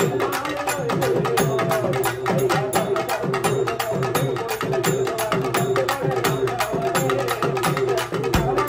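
Urumi melam drum ensemble playing: the rubbed urumi hourglass drums slide up and down in pitch over a dense, steady beat of struck drums.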